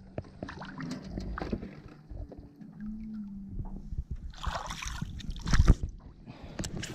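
Water sloshing and splashing as a butterfly peacock bass is lowered by hand into the river at the boat's side and released, with a rush of splashing about four and a half seconds in and a sharp splash or knock just after.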